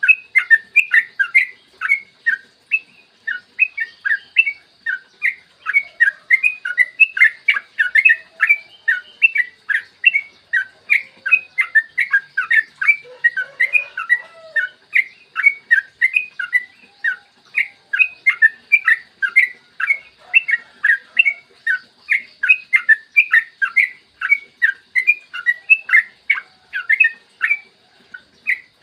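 Yellow-vented bulbul (trucukan) singing a long unbroken run of quick chirping notes, several a second, over a faint steady high hiss.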